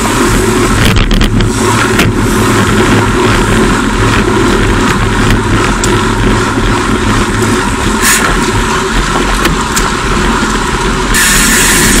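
Steady wind and road noise rushing over a bike-mounted camera's microphone while riding at about 40 km/h, with a few sharp clicks about a second in and again near eight seconds. Near the end the noise turns suddenly brighter and hissier.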